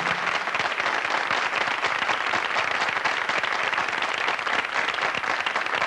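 Audience applauding, a dense, steady clatter of many hands clapping, which starts as the music's final held note cuts off at the very beginning.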